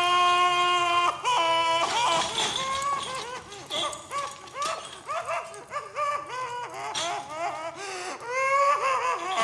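A person crying out in distress: a long held wail that breaks off about a second in, then a run of short whimpering, sobbing cries, which swell into another wail near the end.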